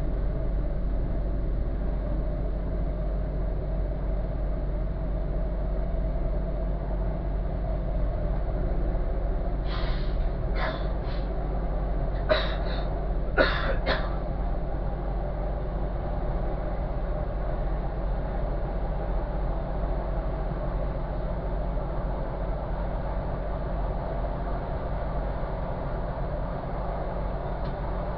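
Diesel train running along the line, heard from the driving cab: a steady low rumble, with a run of sharp clicks over a few seconds about ten seconds in.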